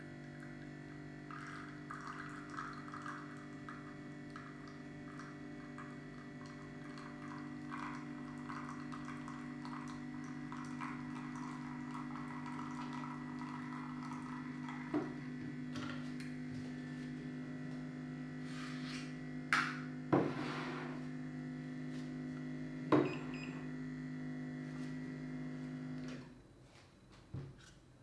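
Handheld milk frother (Subminimal NanoFoamer PRO) running: a steady motor hum with a crackling fizz of liquid being frothed, and a few sharp knocks in the second half. The motor cuts off about two seconds before the end.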